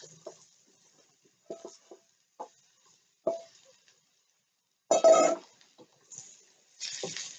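Kitchen utensils working a wok: a spatula tapping and scraping as mushrooms are tipped from a plastic bowl into the hot pan, with a few light clinks and knocks, one of them ringing briefly. A louder clatter comes about five seconds in, and a short hiss near the end.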